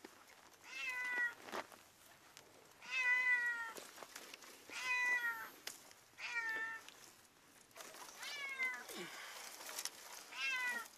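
A kitten trapped down a well meowing repeatedly, about six meows a second or two apart, each falling slightly in pitch. These are the distress cries that the shepherd describes as painful meowing and crying.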